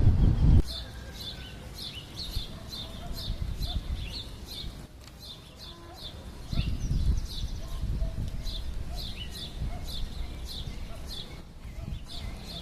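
A bird calling a long, evenly paced series of short high notes, a couple to a few each second, with low wind-like rumbling on the microphone at the start and again about halfway through.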